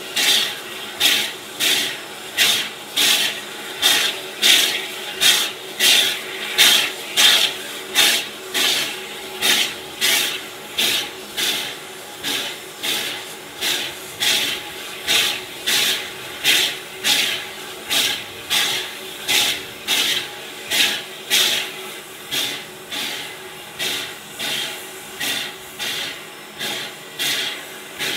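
Steam locomotive #81, a 2-8-0, chuffing steadily as it moves slowly, about two sharp exhaust beats a second, with steam hissing from around its cylinders.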